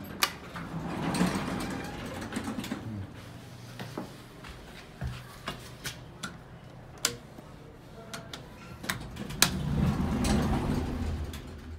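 Elevator push-buttons clicking under single presses, scattered through the middle, with two longer swells of sliding, rumbling noise about a second in and near the end.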